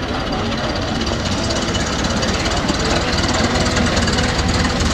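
Hot rod engine in a Ford Model A coupe running with a rapid, even exhaust pulse as the car pulls away and passes close by, growing a little louder in the second half.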